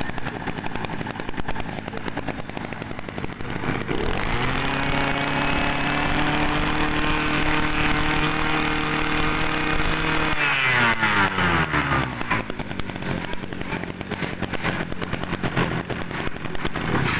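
Kioritz 34cc two-stroke brush cutter engine running roughly at idle, then revved up about four seconds in and held at a steady high speed. About ten seconds in the throttle is released and the pitch falls back to a rough idle.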